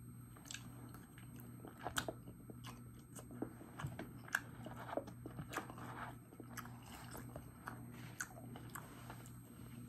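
Faint close-up chewing of soft, mashed food, with scattered small wet mouth clicks and smacks.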